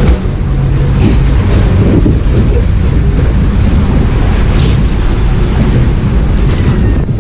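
Loud, steady wind rumble on the microphone of a rider aboard a moving log flume boat, with the rush of the flume's water mixed in.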